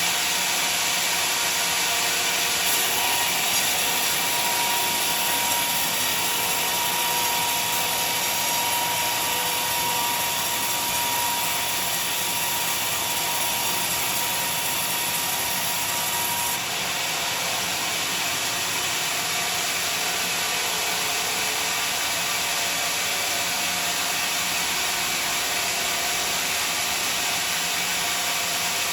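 Sawmill saw running as it cuts a large log: a steady, hissing machine noise. About seventeen seconds in, a thin whine drops out and the hiss eases a little.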